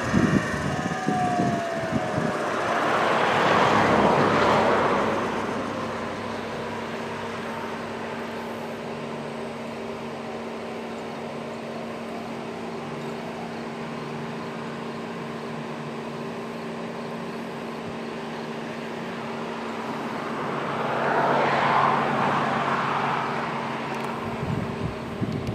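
Tail of a Federal Signal Model 2T dual-tone siren winding down, its tones falling in pitch and fading within the first second or two. Then two vehicles pass, about 4 seconds in and again near 22 seconds, over a steady low hum.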